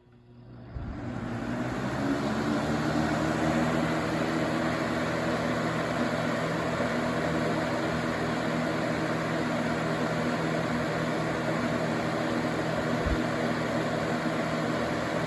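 Galaxy B20100 box fan started on high speed, its motor and blades spinning up over about two seconds to a steady whir of moving air over a low motor hum.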